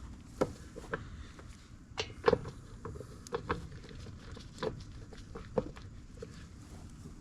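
Irregular light clicks and knocks from hand work on the mower's plastic cover and its bolts, with the loudest knock about two seconds in.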